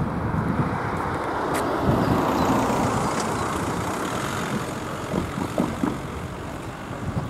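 An estate car passes close by and drives away, its tyre and engine noise loudest about two seconds in and then fading. A few light thumps come about five to six seconds in as its tyres cross the rails.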